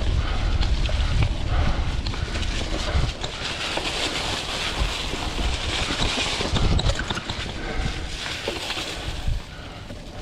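Vintage Klein Attitude Comp mountain bike riding dirt singletrack, picked up by a chest-mounted action camera: wind buffeting the microphone, tyres rolling over the trail and scattered knocks and rattles from the bike over bumps.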